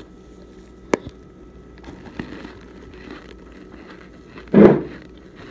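Crunching and chewing of compressed Argo starch chunks close to the microphone: small crackles, a sharp crack about a second in, and one loud, deeper crunch near the end.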